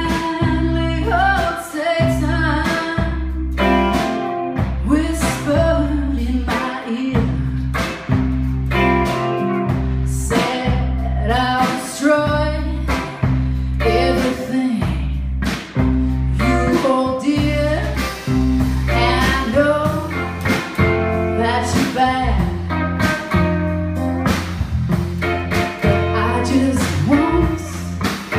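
Live rock band playing: a woman singing lead over two electric guitars and a drum kit, with regular drum hits.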